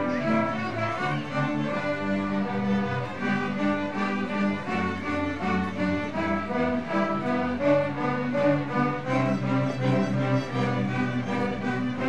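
A children's string orchestra playing a piece: violins bowing a melody over lower strings, with notes held about a half second to a second each.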